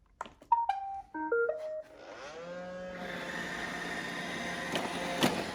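A click, then a Roomba robot vacuum plays its short start-up tune of beeps: the robot has just been switched on. About two seconds in its vacuum motor and brushes spin up with a rising whir and run steadily, with a sharp knock near the end.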